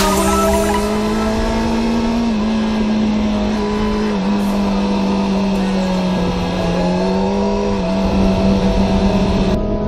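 Sport motorcycle engine running hard, heard on the bike, its pitch climbing slowly and dipping briefly three times, at about two, four and eight seconds in, as the revs ease and pick up again.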